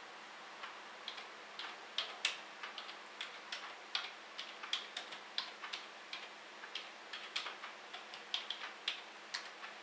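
Irregular light clicks of typing on keys, a few each second.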